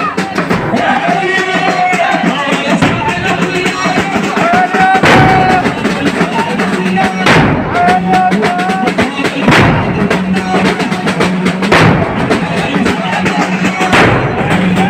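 Shia Muharram mourning-procession music (latmiya): heavy drum strikes about every two seconds under a wavering melodic line and chanting voices.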